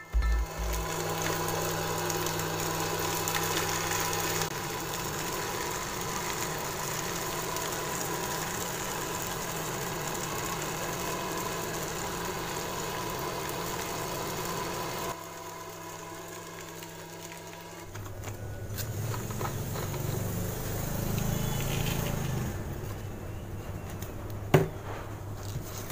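Small DC motor running steadily with a hum and whine, its sound shifting in level and tone a few times. A single sharp click comes near the end.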